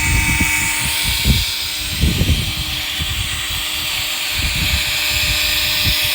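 Wind buffeting the microphone in irregular gusts, with a faint steady hum underneath.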